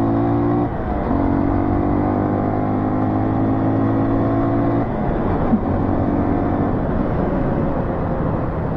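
Dirt bike's single-cylinder four-stroke engine running at a steady speed under way. It breaks briefly about a second in, then holds an even note. From about five seconds in it turns lower and rougher.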